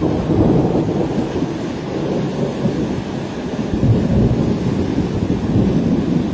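Loud, steady low rushing noise of floodwater flowing over the land, mixed with wind buffeting the microphone, swelling slightly about half a second in and again near four seconds.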